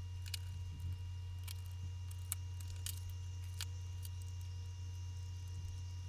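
Steady low background hum with a few faint, scattered small clicks.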